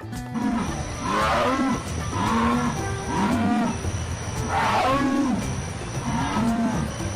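Jaguar calling: a series of low, repeated calls, roughly one a second, two of them louder and rougher than the rest.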